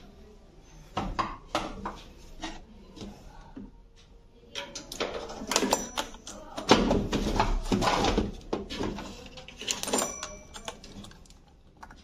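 Clicks, knocks and rattles of plastic parts being handled: the washing machine's plastic control-panel housing and circuit board being moved and its wire connectors worked by hand, with a denser run of clatter from about five to ten seconds in.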